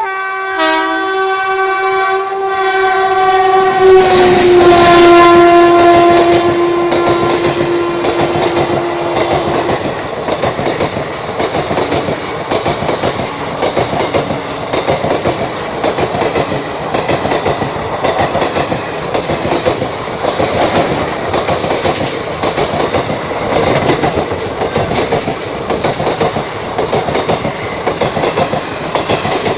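WAG-5 electric locomotive's horn held in one long blast for about ten seconds, its chord dropping in pitch about four seconds in as the loco passes. The train's ICF coaches then rush past with a rhythmic clickety-clack of wheels over rail joints.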